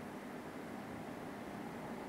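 Electric dog clippers running steadily: an even hiss over a faint low hum.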